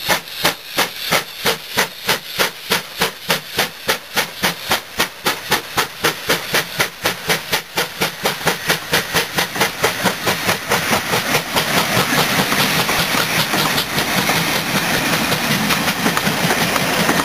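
GWR 2884 Class 2-8-0 steam locomotive No. 3850 working past under steam, its exhaust beating about three times a second with steam hissing from the cylinders. From about ten seconds in, the beats fade into the steady rumble and clatter of its coaches rolling by.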